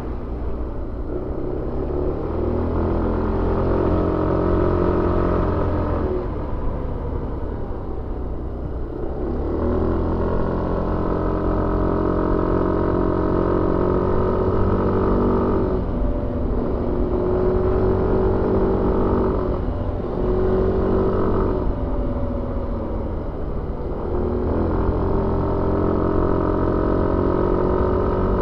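Suzuki Avenis 125 scooter's single-cylinder engine heard onboard while riding. It rises in pitch as the throttle opens, eases off for a few seconds, then pulls again several times with short dips in between.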